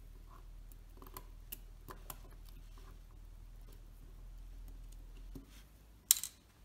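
Fine metal tweezers working small parts of a Synchro-Compur leaf shutter, giving a few faint scattered ticks, then one sharper, louder click a little after six seconds in.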